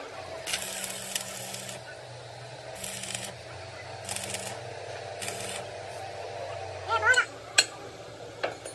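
Welding arc struck in four short bursts of hiss with the welding machine's hum under them, as when tacking or stitch-welding a pin. Near the end come a short squeak and a couple of sharp metallic clinks.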